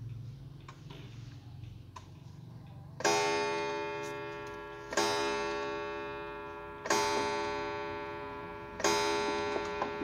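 Citizen quartz wall clock striking four o'clock on its steel coil gong: four strikes about two seconds apart, the first about three seconds in. Each one rings on loud and fades slowly, like a church bell. A few faint clicks come before the first strike.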